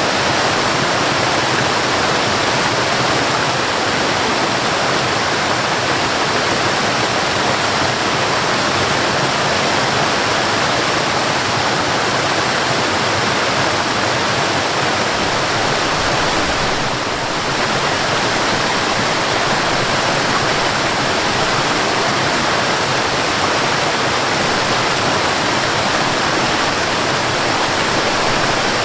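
Waterfall: a steady, unbroken rush of falling water, with a brief dip in level about seventeen seconds in.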